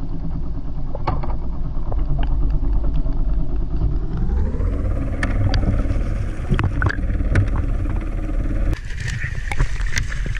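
The boat's engine heard as a muffled underwater rumble, with scattered sharp clicks and bubbling as a hooked albacore tuna is drawn up to the surface. About nine seconds in the sound changes abruptly to open air, with water splashing at the hull.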